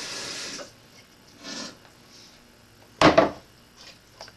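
Tap water running into a stainless steel cooking pot shuts off about half a second in. About three seconds in, the pot is set down on the counter with one loud knock and a short scrape, followed by a few faint clinks.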